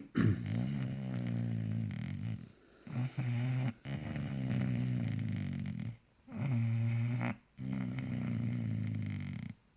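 Bulldog snoring, juicy and loud, a pitched rattling drone on each breath, about five breaths with short gaps between them.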